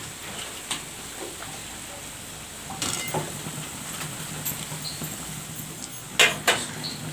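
Drumstick-leaf bondas sizzling in deep hot oil in a metal pan, a steady frying hiss. A few light clicks come about three seconds in, and two sharper metallic knocks come near the end as a wire-mesh strainer meets the pan.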